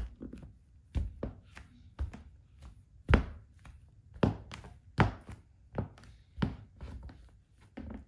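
High-heeled sandals stomping and stepping on lumps of Play-Doh and a hardwood floor: an uneven run of thuds and heel taps, roughly one or two a second, the loudest about three seconds in.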